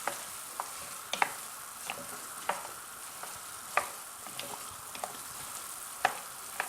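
Okra being stirred into a pot of tomato sauce on the heat: a steady sizzle, with irregular clicks and scrapes of the spoon against the pot.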